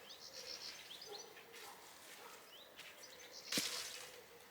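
Faint, short bird chirps several times in a quiet garden. About three and a half seconds in comes a brief rustling scrape, the loudest sound.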